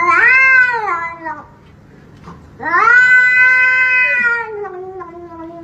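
Grey short-haired cat yowling defensively at a hand reaching toward it. It gives two long drawn-out yowls: a short one at the start, then a longer one from about two and a half seconds in, which sinks lower in pitch as it trails off near the end.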